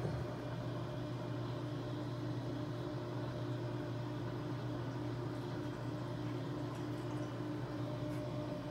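Steady mechanical hum of reef aquarium equipment: a low constant tone with fainter higher tones over a light hiss, unchanging throughout.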